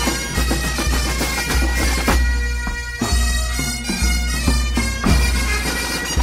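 Breton bagad playing: bagpipes over steady drones, with drum strokes about twice a second.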